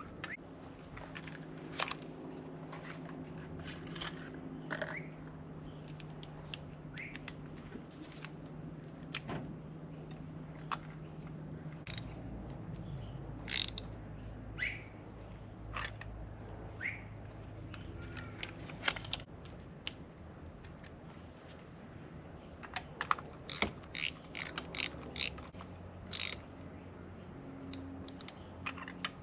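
Hand tools and metal parts clicking and tapping while new spark plugs are fitted into the engine, with a run of quick clicks near the end, over a steady low hum.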